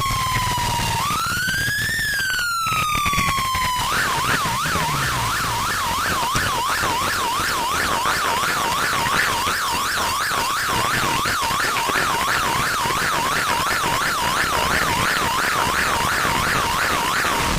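Vehicle siren: a slow wail that falls, rises once and falls again, then switches about four seconds in to a fast yelp of about three rises a second, held steady until near the end.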